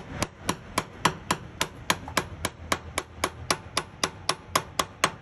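Hammer striking a 33 mm socket held as a driver, tapping a bushing onto a truck's brake slack adjuster: a steady run of about twenty sharp strikes, roughly four a second, that stops near the end.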